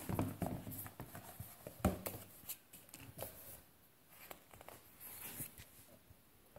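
A graphic novel being opened and its paper pages handled and turned: irregular rustling and light clicks, with a sharp tap about two seconds in and a longer rustle of a page near the end.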